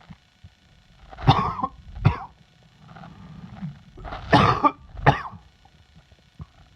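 A man coughing from a chest cold: two coughs, a pause with a breath in, then two more coughs.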